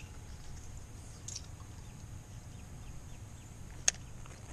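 Outdoor ambience: a low rumble under a bird faintly calling a series of short, falling notes. A single sharp click comes a little before the end.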